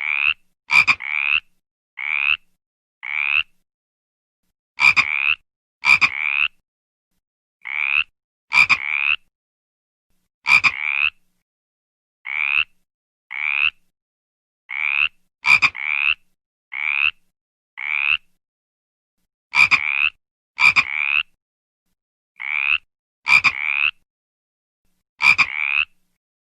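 A frog calling in a long series of short croaks, each rising slightly in pitch. The croaks come in clusters of two to four, with brief silences between the clusters.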